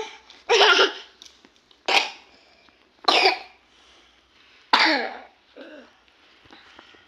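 A person coughing four times, about a second apart, with a fainter short sound soon after the last cough.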